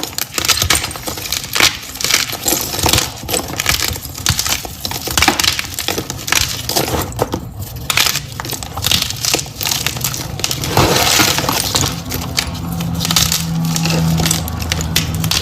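Red gym chalk being crushed: a dense run of crisp crunches and crumbling crackles. A low steady hum comes in about two-thirds of the way through.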